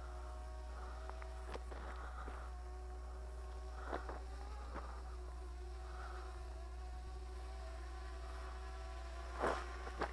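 MJX Bugs 7 (B7) small brushless quadcopter buzzing overhead at a distance: a steady, even whine of its propellers as it descends on reduced throttle. A few faint clicks, the loudest near the end.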